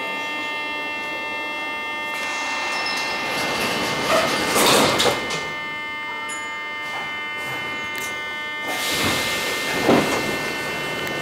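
Metro car's sliding doors closing, with a rush of air and a heavy knock about four to five seconds in, over a steady electric whine. Near the end there is a second hiss that ends in a knock.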